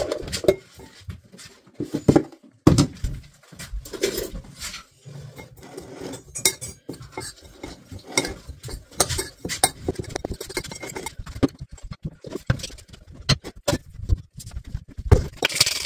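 A metal spoon clinking and scraping against a ceramic bowl as a food mixture is stirred, with a rattle of loose pieces tipped into the bowl at the start. There is a sharper knock near the end.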